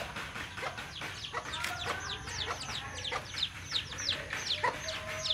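A chick peeping: a rapid run of short, high cheeps, each falling in pitch, several a second, starting about a second and a half in.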